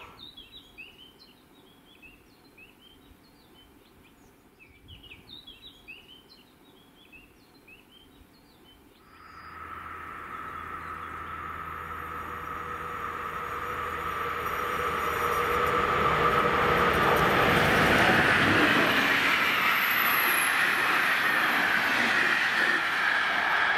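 Birds chirping softly for the first nine seconds or so. Then an electric-hauled passenger train is heard approaching and passing, with a steady high ringing tone, growing louder until it is loud for the last several seconds.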